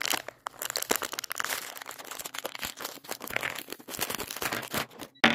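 Clear plastic wrapper crinkling as hands work it open, a dense run of small crackles that stops abruptly near the end.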